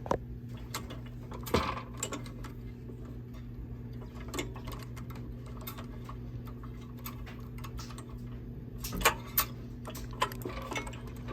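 Scattered small clicks and taps from working the throttle linkage and fuel line off a Predator 212 engine's carburetor, a few of them sharper, over a steady low hum.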